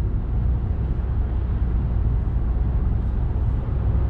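Steady low rumble of a moving car, heard from inside the cabin: road and engine noise with no breaks.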